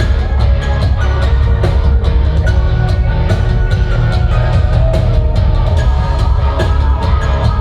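Live rock band playing loud at a sound check, with heavy bass, a steady run of drum hits and sustained guitar or keyboard notes over them.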